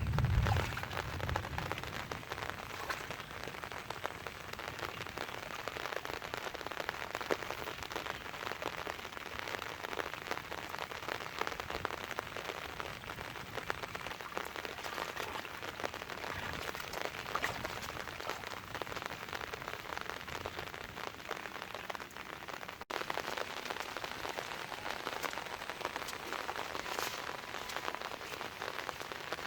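Steady patter of rain, a dense hiss of many fine drops hitting the ground and water, with a brief break about two-thirds of the way through.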